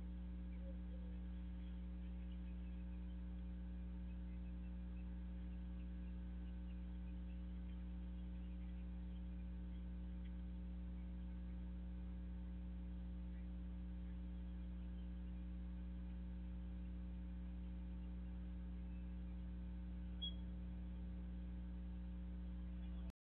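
Steady electrical mains hum, a stack of low tones from a security camera's audio pickup, with a faint short tick near the end.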